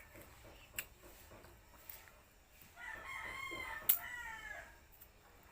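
A rooster crowing once, a single drawn-out crow of about two seconds starting roughly three seconds in. A few sharp clicks come before and during it.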